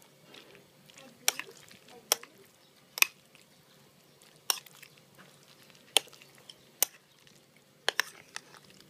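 Metal spoon mixing sliced raw beef in a ceramic bowl, clinking sharply against the bowl about eight times at irregular intervals, with soft wet mixing sounds between.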